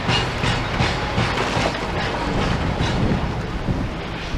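Demolition excavators working rubble and scrap metal, heard from a distance: a steady diesel engine hum under a regular run of metallic clanks and crunches, about two or three a second, easing off near the end.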